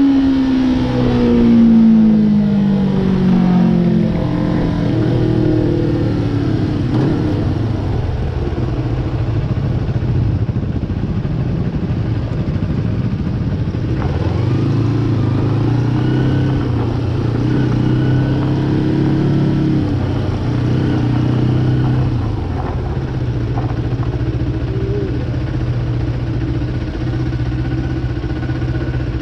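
Motorcycle engine slowing, its pitch falling steadily over the first few seconds, then running at low revs for the rest, with small rises and falls.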